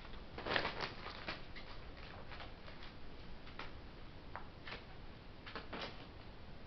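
Irregular light taps and crinkles of plastic tarp sheeting as a juvenile herring gull shifts and steps about on it, about fifteen small clicks in all, bunched most closely about a second in.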